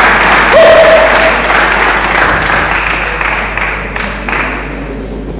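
Audience applauding, dying away gradually, with a short held note about half a second in.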